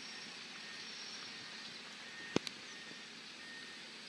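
Steady outdoor background noise with a faint high steady whine, broken by two sharp clicks in quick succession a little over two seconds in.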